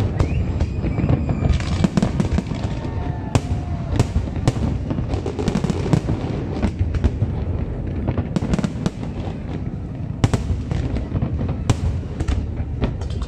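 Aerial fireworks display going off: a dense, irregular string of sharp bangs and crackles, several a second, over a steady low rumble.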